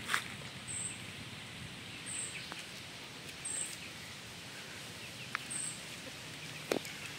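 Outdoor background with a short, high-pitched chirp repeating about every second and a quarter, and a few scattered sharp clicks.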